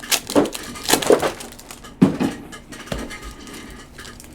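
Trading-card packs and box being handled on a table: a few sharp clicks and knocks with rustling, the loudest near the start and about two seconds in.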